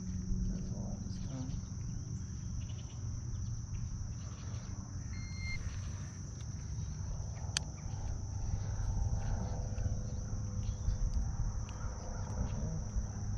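Insects, crickets or cicadas, in a steady high-pitched chorus, over a low steady rumble, with one sharp click about seven and a half seconds in.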